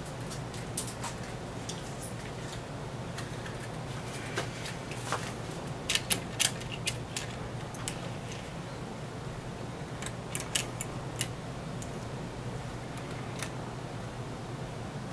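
Small clicks and taps of a model steam locomotive and its tender being handled and set onto the track rails by hand, bunched about six seconds in and again about ten seconds in, over a steady low hum.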